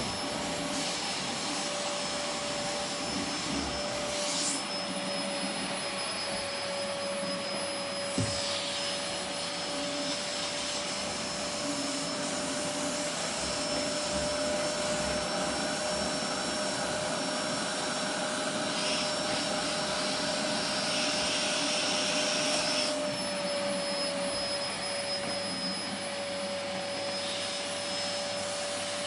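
Vacuum cleaner running steadily: a constant rush of suction with a held whine from the motor. The higher hiss of the airflow swells and changes now and then, and there is a single click about eight seconds in.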